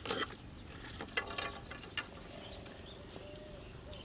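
A few short clicks and knocks of things being handled at a plastic basin with a steel bowl, bunched in the first two seconds, then faint high chirps in the background.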